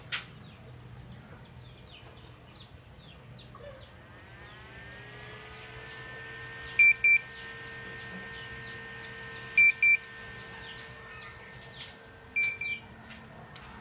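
An electronic buzzer sounding loud double beeps about every three seconds from about halfway through, over a steady hum that rises in pitch about four seconds in and then holds. Quick high chirps are heard in the first few seconds.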